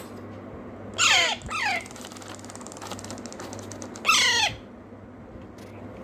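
Young Alexandrine parakeet chicks giving harsh, downward-sliding squawks: two close together about a second in and a third about four seconds in. These are food-begging calls, excited by the sight of the feeding spoon.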